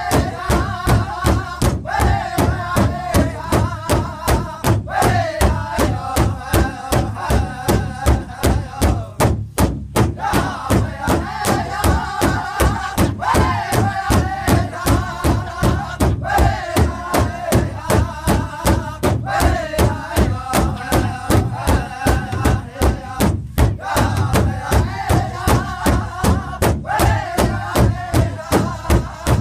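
Powwow drum group playing an intertribal song. Several singers strike a large shared hand drum in a steady unison beat, about three beats a second, while singing together in chorus.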